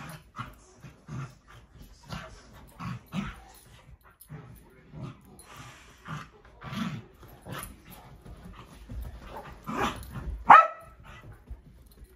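Great Pyrenees and Corgi puppy play-wrestling with their teeth: a run of short growls and barks every half second or so, with one loud bark near the end.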